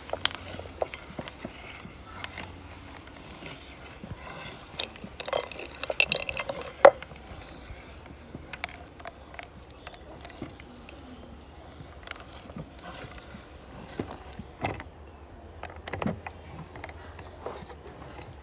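Meat grinder crushing layered hard candy: irregular crunching and cracking with sharp clicks, loudest in a dense cluster about five to seven seconds in.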